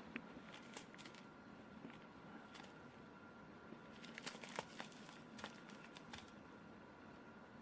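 Faint, scattered crinkling and rustling of a homemade catnip toy with crinkly Mylar inside as a kitten paws at it, a cluster of small crackles about four to five seconds in, over quiet room tone.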